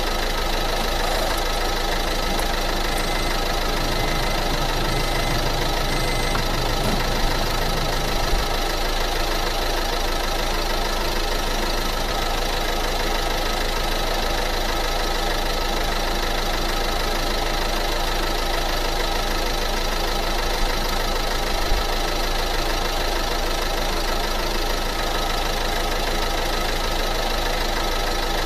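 A motor running steadily with an even, many-toned mechanical hum that does not change, with a few small clicks scattered through.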